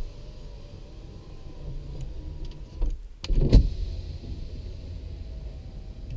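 Ford Crown Victoria Police Interceptor power window motors whining as the windows go down, one after another. A thump sounds about three and a half seconds in, between the two runs.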